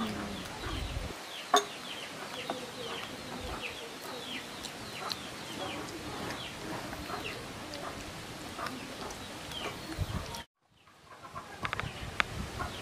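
Chickens clucking and chirping in the background, many short high falling chirps one after another, with a single sharp click about a second and a half in. The sound cuts out for about half a second near the end.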